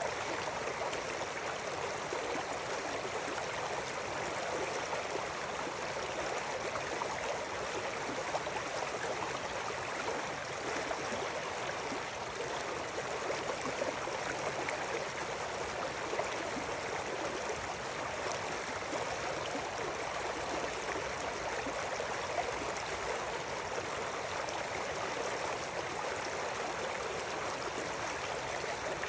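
River water flowing and burbling over rocks in a steady rush.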